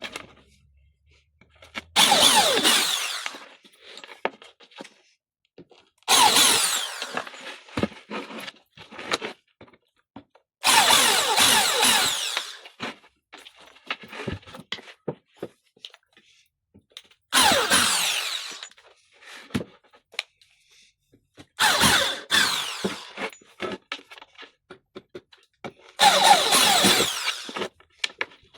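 Cordless power drill running in six short bursts a few seconds apart, its motor pitch sliding within each burst. Small clicks and knocks come between the bursts.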